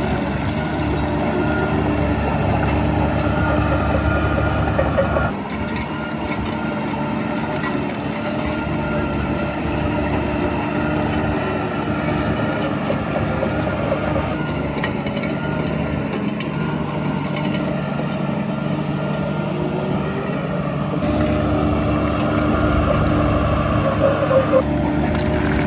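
Heavy diesel earthmoving machinery running steadily, a bulldozer or dump truck engine at work. The engine note changes abruptly a few times.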